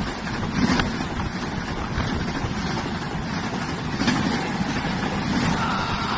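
Shatabdi Express coaches passing close at high speed without stopping: a steady rush of wheels on rail and wind, swelling louder a few times as the coaches go by.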